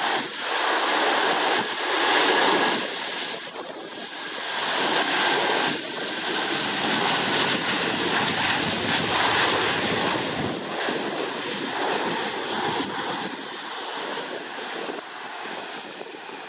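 Airbus A320-232 jet running loud on the runway during its landing roll, a noise that swells and falls and dies down near the end, with gusting wind on the microphone.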